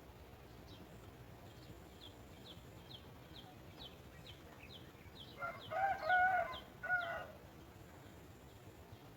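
A rooster crows once, a call of about two seconds in the second half, over a row of short, high chirps repeating about twice a second.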